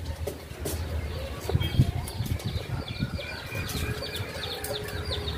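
Sugarcane stalk being peeled and cut with a knife: a series of irregular sharp cracks and knocks. From about halfway in, small birds chirp rapidly in the background.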